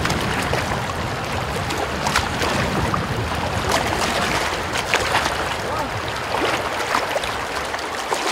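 A fast-flowing river rushing past as a steady wash of water noise, with occasional small splashes.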